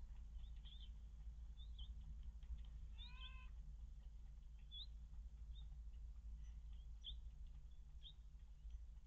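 A cat's single short meow about three seconds in, over faint scattered high bird chirps and a steady low hum.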